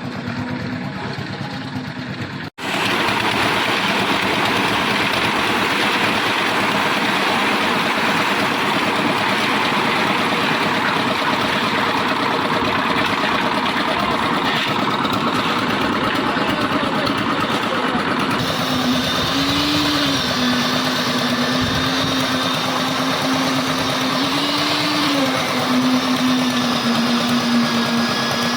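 Concrete mixer machine's engine running steadily with dense mechanical noise, after an abrupt break about two and a half seconds in. From about two-thirds of the way through, a humming tone rises and falls over the running.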